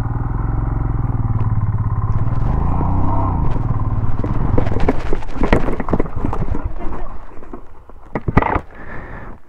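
Royal Enfield Himalayan's single-cylinder engine running with the throttle opened and closed as the loaded bike slithers along a muddy edge, then the bike falls onto its side with a burst of knocking and clattering about five seconds in, and the engine goes quiet.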